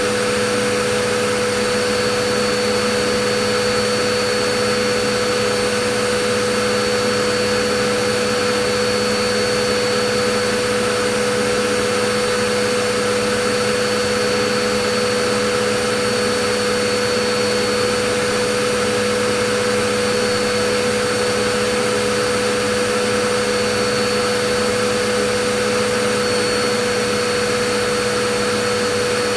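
Vacuum cleaner running continuously at a steady pitch, its motor hum and airflow unchanging.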